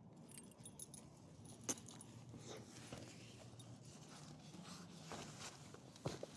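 Faint metallic jingling and clinking, as of dog collar tags on a walk, with a couple of sharper clicks.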